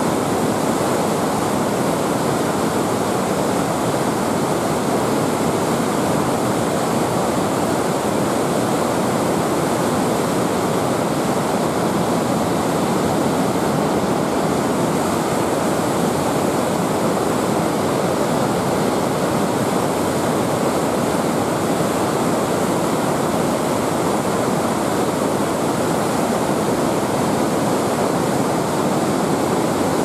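The Grossarler Ache's whitewater and waterfall rushing steadily through a narrow rock gorge, a dense unbroken roar of water with no let-up.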